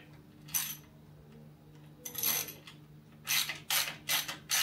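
Socket ratchet clicking in short bursts as its handle is swung back while tightening a bolt: one burst about half a second in, a longer one around two seconds in, then four quick bursts near the end.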